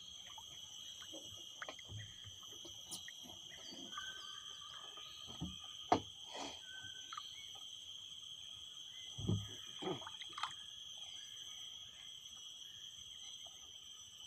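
A steady, high-pitched drone of insects calling from the mangroves. Occasional knocks and thumps sound in the wooden boat, the sharpest about six seconds in and a couple of low thumps around nine to ten seconds in.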